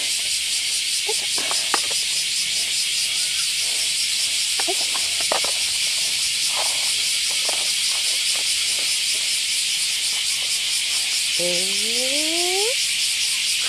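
Chorus of cicadas: a dense, steady, high buzzing hiss with a fast flutter.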